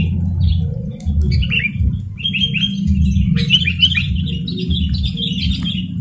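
Sooty-headed bulbuls (kutilang) calling in quick runs of short, falling chirps. They start about a second in and grow thicker in the second half. Underneath runs a low, pulsing rumble.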